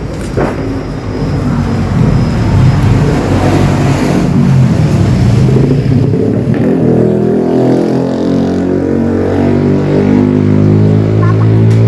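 A motor vehicle's engine running, loud and close, with road and wind noise. In the second half the engine's note comes through clearly and climbs a little as the vehicle picks up speed.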